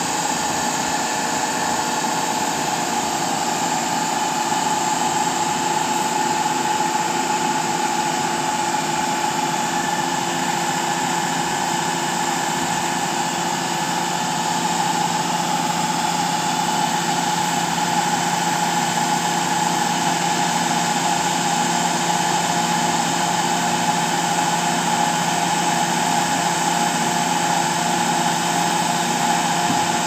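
Diesel engine of a SANY 55X-6 concrete boom pump truck running steadily with a constant whine, driving the hydraulics while the outriggers are set out.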